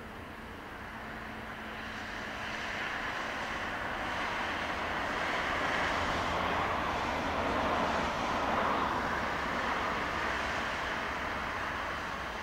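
Class 460 electric multiple unit (Siemens Desiro ML) approaching on the rails. Its wheel and running noise is a steady rushing that grows louder over the first few seconds, peaks past the middle, then eases slightly.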